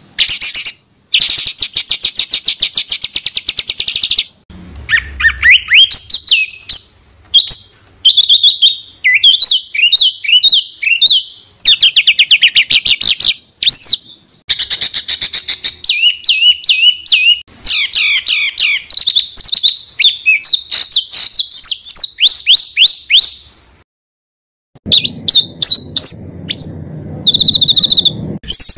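Songbird song made of fast, dense trills and rapid strings of high whistled notes sweeping up and down: the tight 'tembakan rapat' burst phrases prized in Indonesian songbird training. It breaks off for about a second near the end, then a different recording with a low background hum takes up.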